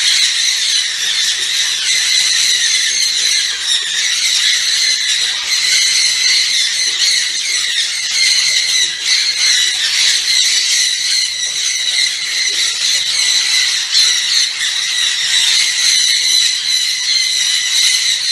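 A flock of sun and jenday conures screeching constantly, many shrill calls overlapping without a break.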